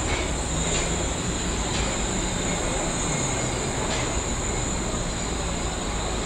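Wuppertal Schwebebahn suspended monorail car, a Generation 15 unit, moving alongside the station platform: a steady low rumble and hum, with a few faint clicks.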